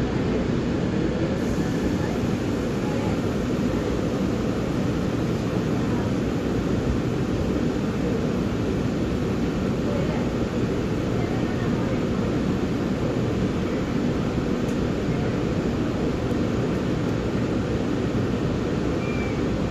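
Steady running noise of a moving Gyeongui-Jungang line electric commuter train, heard from inside the carriage: a continuous low rumble with no pauses or distinct events.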